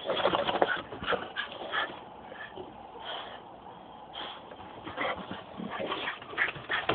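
A dog whimpering in short high whines while begging for a treat, with clicks and scuffling of the dog moving about.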